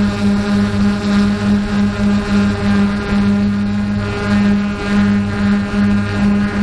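An engine running steadily, a low hum that pulses a few times a second.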